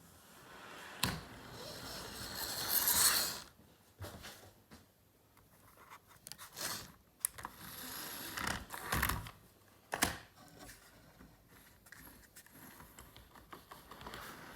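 Handling noises of small hard parts: irregular clicks, knocks and scrapes, with a short rushing hiss about two to three seconds in.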